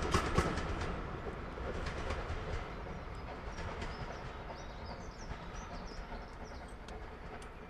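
Railway coaches running away into the distance, the rumble and clicks of their wheels over the rail joints slowly fading. Birds chirp as the train dies away, about five seconds in.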